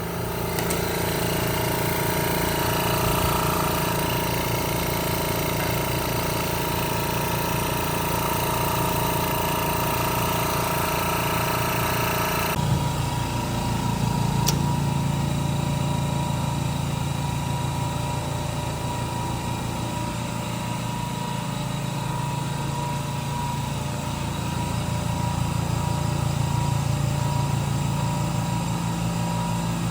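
Air compressors of a Peak Scientific AB-3G nitrogen generator running steadily with a hum, the generator in diagnostic mode. About twelve seconds in, a hiss over the hum stops abruptly and the hum shifts pitch, with a single click a couple of seconds later.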